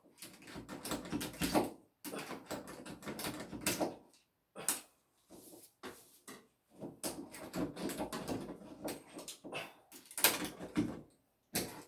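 Straightened wire coat hanger scraping and clicking against the metal of a bathtub drain as it is worked in and out to hook out clumps of hair, in short scratchy spells with brief pauses.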